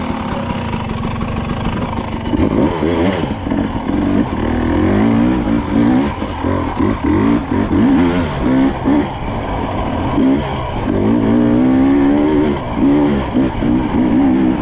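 Husqvarna TE300i two-stroke dirt bike engine, running fairly steadily for about two seconds, then revving up and down over and over as the throttle is worked on the trail.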